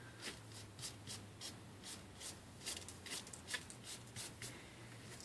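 Faint, irregular light clicks and taps of small phone parts and tools being handled on a work surface, over a low steady hum.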